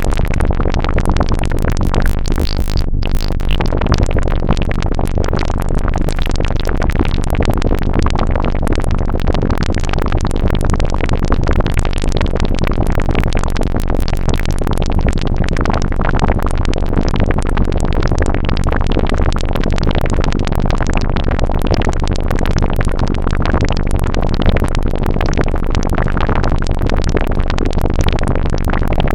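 Serge Eurorack modular synthesizer (Random Source DUSG and SSG modules) generating a synthesized water and liquid sound effect: a dense, continuous run of rapid clicks and pops, briefly dropping out about three seconds in.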